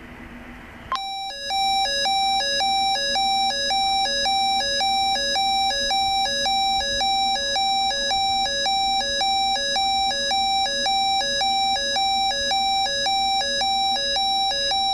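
A two-way radio's weather alert alarm sounding after receiving a NOAA Weather Radio Required Weekly Test: an electronic two-tone warble, high note then low note, repeating about twice a second. It starts about a second in and cuts off just before the end.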